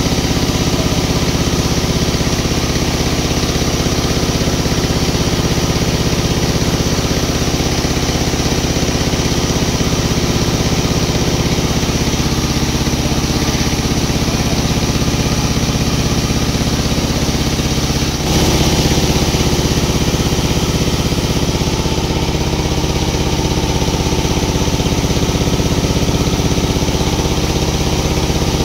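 Sawmill machinery running with a steady engine drone. A short knock comes a little past halfway, after which the sound is slightly louder.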